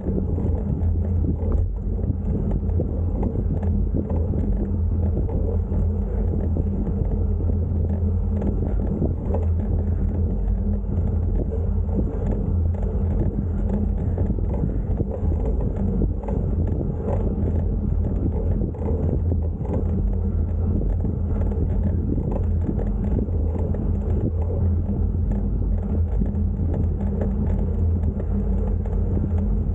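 A steady low rumble that keeps up without a break.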